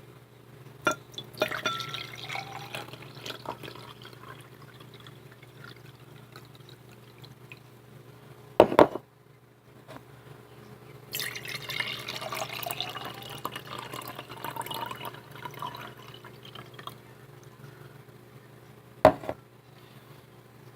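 Water poured into a glass twice, the pitch of the pour rising as the glass fills. Three sharp knocks, the loudest in the middle, and a steady low hum underneath.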